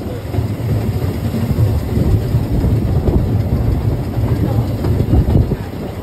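Narrow-gauge steam-hauled train running, heard from inside a coach: a steady low rumble of the coach wheels on the rails with irregular clattering.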